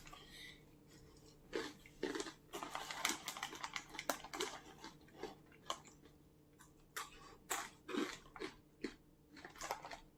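A person chewing crunchy corn chips, with irregular crisp crunches close to the microphone.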